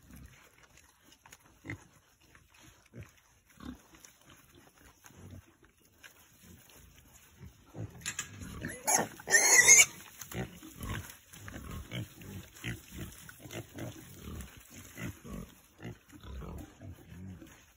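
A group of pigs grunting as they crowd in to feed on a dead chicken. The grunts are sparse and faint at first and come thick and fast in the second half, with one loud squeal about nine seconds in.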